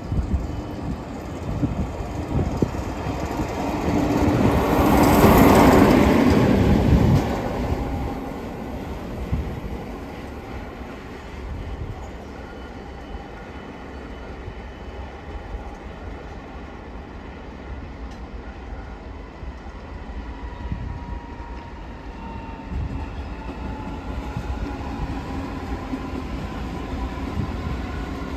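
A train passing close by, swelling to a loud rush about five seconds in and falling away within a few seconds. Then a lower steady rumble, with a thin whine that slowly falls in pitch in the later part.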